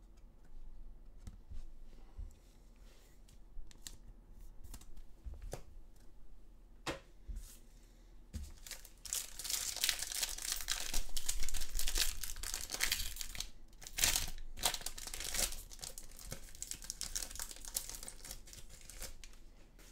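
Foil wrapper of an AFL Footy Stars trading card pack being handled, then torn open and crinkled by hand. There are light, scattered rustles and clicks at first, then loud, continuous crinkling and tearing from about eight seconds in, easing off near the end.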